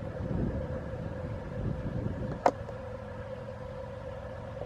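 Diesel locomotive engine running with a steady drone and a low rumble that settles after about two seconds, with a single sharp click about two and a half seconds in.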